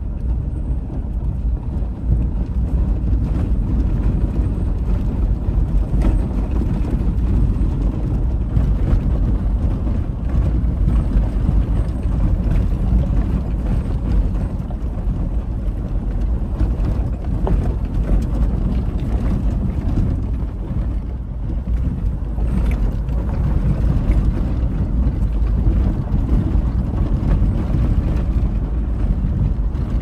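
Steady low rumble of a vehicle on the move, with wind buffeting the microphone and a few faint knocks.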